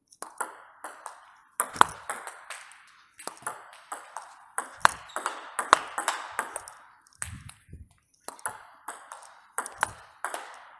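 Table tennis ball played back and forth in a backspin push rally: a steady run of sharp clicks, a few per second, as the ball strikes the rackets and bounces on the table.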